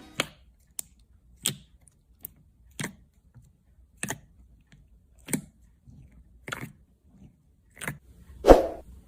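Metallic slime with ice being pressed and handled, giving sharp crackles and clicks about every second and a quarter, with a louder, fuller crunch near the end.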